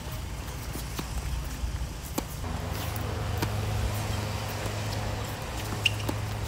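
Tennis balls being struck and bouncing during a rally: a handful of faint, sharp pops spaced a second or so apart, over a steady low rumble.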